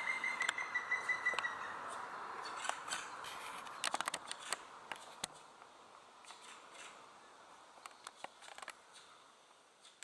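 A black woodpecker calling: a rapid run of high notes at one pitch, dropping slightly, that stops about a second and a half in. Scattered sharp clicks follow over a steady hiss that fades away.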